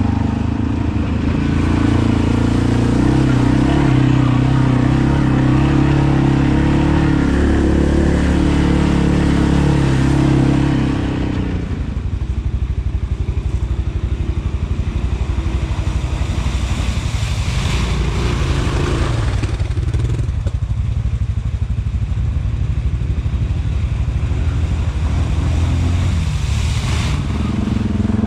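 ATV engine running steadily on throttle, then easing off about eleven seconds in to a lower, pulsing run.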